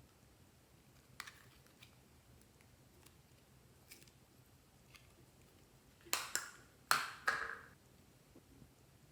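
Slime being worked by hand: a few faint sticky clicks and pops, then a short run of louder crackling, squelching pops about six seconds in.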